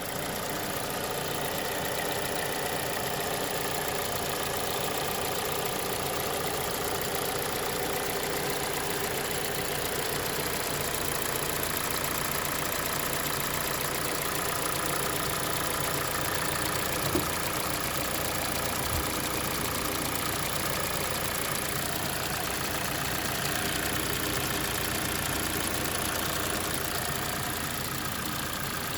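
Kia Sportage 2.0 (2021) engine idling hot, with a light ticking that comes and goes, louder at times and at times gone, and two sharper clicks a little past the middle. The dealer takes the tick for the opening of the evaporative canister purge valve.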